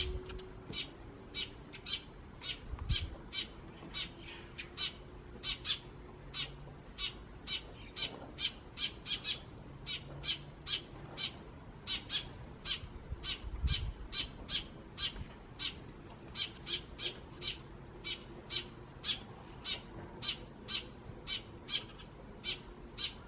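A flock of Eurasian tree sparrows chirping continuously: short, sharp chirps repeated about two to three times a second without pause.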